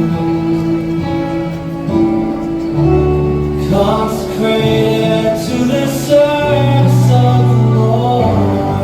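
Music from a song with instrumental accompaniment: held chords changing every second or two, with a sung melody line in the middle.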